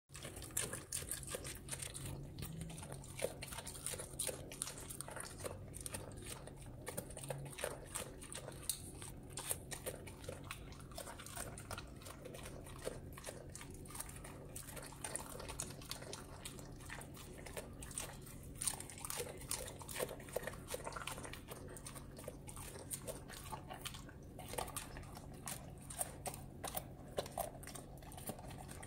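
A Doberman crunching and chewing strips of raw carrot picked off a tile floor: a quick, irregular run of crisp crunches that goes on throughout.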